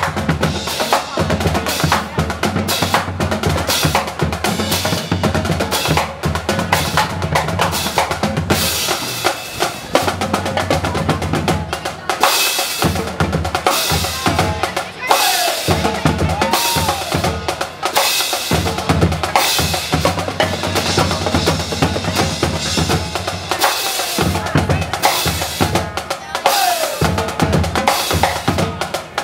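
Marching drumline playing: snare and multi-tenor drums with rapid strikes and rolls, Pearl marching bass drums, and crash cymbals hit at intervals.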